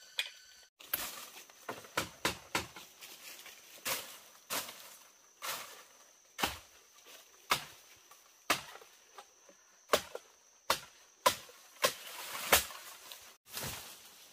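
Sharp knocks or chopping strikes, roughly one a second and sometimes two in quick succession, with a short rougher noisy stretch near the end. A steady high insect buzz runs underneath.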